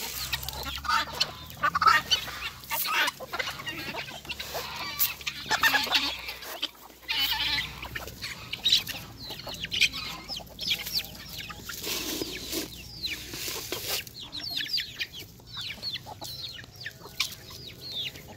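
A flock of chickens clucking, mixed with short calls from other poultry crowding in to be fed, in a busy, overlapping chorus.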